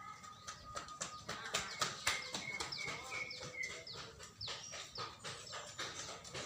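Cucak ijo (green leafbird) singing a fast, continuous run of sharp chirps and quick downward-sliding whistles.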